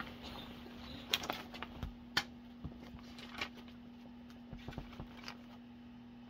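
Quiet room with a steady low hum and scattered soft clicks and rustles of people moving and handling things, thinning out toward the end.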